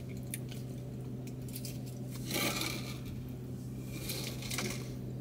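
Small eating sounds: chewing, with light clicks and rustles from handling sushi and its plastic tray, over a steady low hum.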